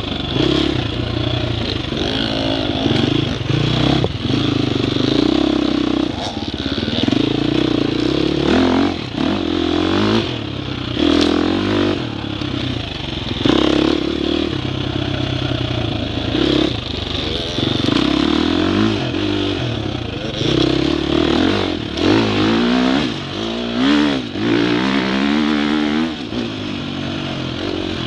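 Dirt bike engine heard from on board at low trail speed, its revs rising and falling again and again as the throttle is worked, with scattered knocks from the bike clattering over the rough ground.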